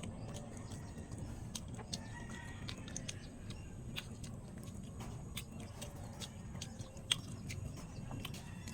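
Someone chewing banana peel: soft, irregular clicks from the mouth. Chickens cluck faintly in the background.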